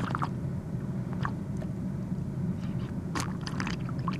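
Drinking sound effect: a few short, scattered swallowing and mouth sounds over a steady low hum.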